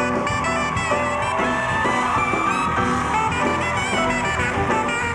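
A studio band plays a jazz tune with a saxophone carrying the melody.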